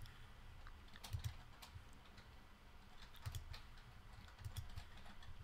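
Faint, irregular taps and clicks as digits of a barcode are typed on an iPad's on-screen keyboard.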